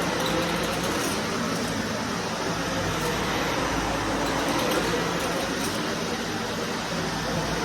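Vacuum cleaner running steadily with an even motor and airflow noise.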